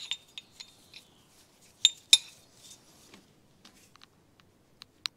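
Metal hand tools clinking: a ratchet and socket extension tapping and knocking against metal. The clinks are scattered and ring briefly at a high pitch, the two loudest coming about two seconds in.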